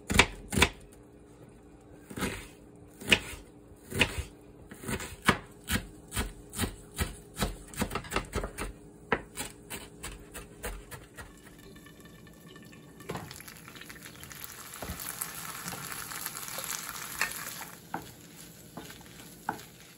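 Kitchen knife chopping onion and cilantro on a bamboo cutting board, separate knocks that come quicker as it goes. About two-thirds of the way through this gives way to a frying pan sizzling steadily while a wooden spatula stirs mashed potato and peas.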